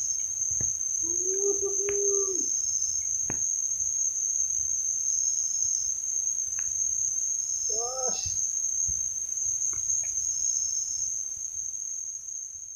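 Forest insects droning in one steady, high-pitched tone, with a couple of short calls about two seconds and eight seconds in.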